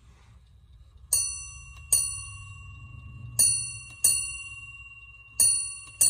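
Schatz 8-day ship's bell clock striking its bell in three pairs of strokes, each stroke ringing on and fading. The pairs follow ship's-bell time, sounding six bells for three o'clock.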